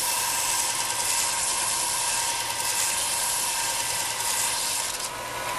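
A power tool running steadily, cutting a chamfer on the bottom edge of a wooden table leg: a sudden start into a loud, even hiss with a steady whine. Near the end the hissing cutting noise drops away and the whine fades.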